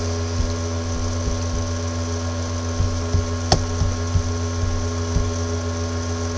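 Steady electrical hum with several steady tones above it, broken by faint low knocks now and then and one sharp click about three and a half seconds in.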